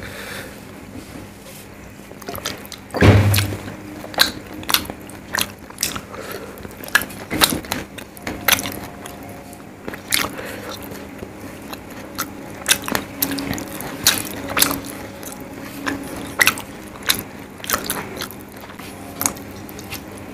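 Close-miked chewing and wet mouth clicks as a mouthful of rice and fish curry, eaten by hand, is chewed, over a faint steady hum. There is a single heavy thump about three seconds in.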